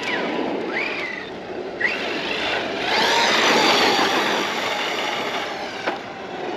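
Arrma Outcast 4S RC truck's brushless motor whining as it is driven hard, the pitch rising in several bursts of acceleration over a steady rushing noise.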